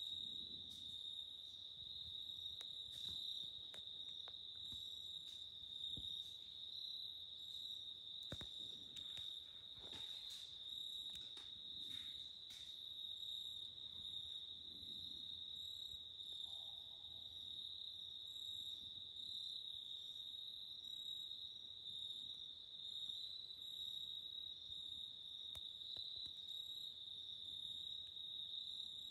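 A steady insect chorus: one continuous high-pitched trill that holds level throughout. A few faint clicks and knocks come between about eight and twelve seconds in.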